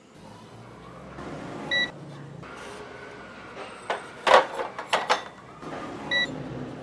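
Clicks and knocks of capacitors being handled and set down inside a metal amplifier chassis, loudest about four to five seconds in. Two short electronic beeps sound, one about two seconds in and one about six seconds in.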